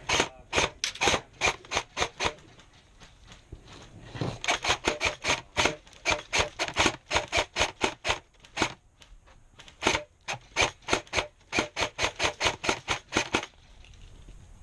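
Airsoft guns firing rapid semi-automatic shots, about four or five a second, in three strings with short pauses between.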